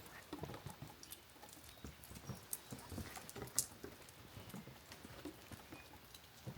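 Footsteps of a person walking at an easy pace, about two steps a second, with a few sharp clicks in between.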